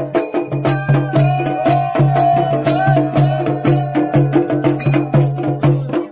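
Kumaoni folk Holi music: drums beating a fast, even rhythm of about four strokes a second, with a long, wavering high note carried over the beat from about a second in.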